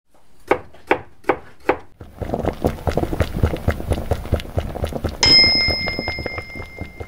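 Four evenly spaced sharp clicks, then a fast run of tapping and knocking. About five seconds in, a single bright bell ding sounds and rings on.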